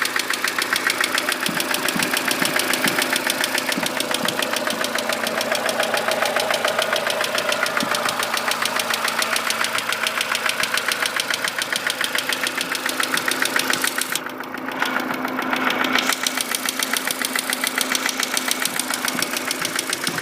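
Mercedes-Benz W168 A-Class engine running with a rapid, regular knock that is still there with the engine fully warmed up.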